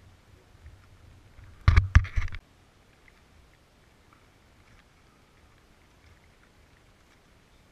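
A short, loud cluster of three or four knocks and scuffs close to the microphone, all within under a second, about two seconds in; faint outdoor background otherwise.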